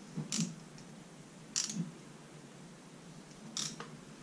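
Hand-held meat injector being worked into a raw turkey to force stock into the meat: three short, sharp noises, near the start, about a second and a half in, and about three and a half seconds in.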